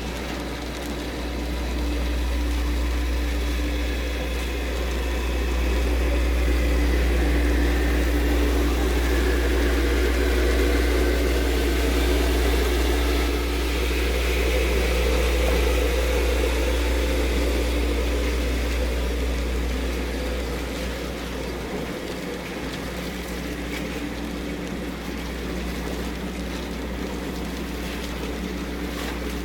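Wind buffeting the microphone over a steady low engine hum from a moored fishing vessel and the wash of choppy harbour water. The wind rumble swells for most of the stretch and eases off about two-thirds of the way through.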